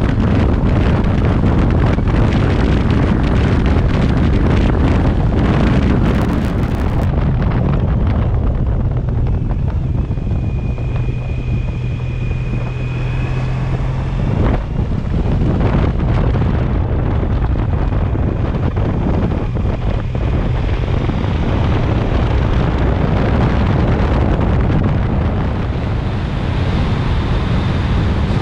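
Wind rushing over the microphone on a moving Honda ST1300 Pan-European motorcycle, over the steady low drone of its V4 engine.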